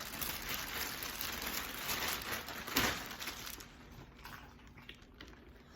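Bag rustling and crinkling as fidget toys are handled and put in. The rustling is busiest for the first three seconds or so, with a sharp crinkle near three seconds, then drops to lighter handling noises and a few small clicks.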